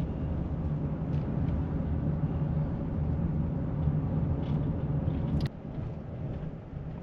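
Steady low road and engine rumble inside a moving car's cabin. About five and a half seconds in there is a short click, and the rumble drops to a quieter hum.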